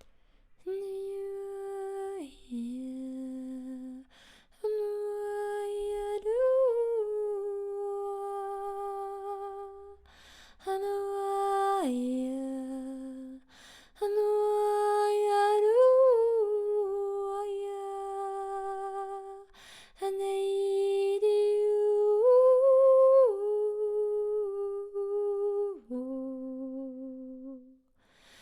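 A woman's voice toning wordless, sustained notes for sound healing. Five long phrases each hold one pitch, with brief upward slides and drops to a lower note, and short pauses for breath between them.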